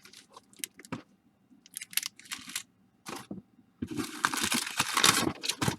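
Crinkling and rustling of baseball card packs and paper being handled and shuffled: scattered short rustles at first, then a denser spell of crinkling from about four seconds in until just before the end.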